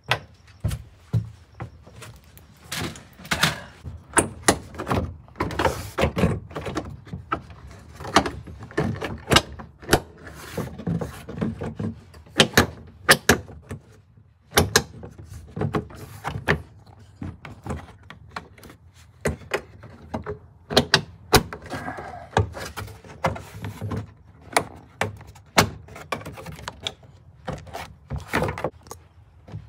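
Hard plastic rear interior trim panels of a Honda CRX being handled and pressed into place against the bare metal body: a long run of irregular knocks, clicks and thunks as the panels are positioned and seated.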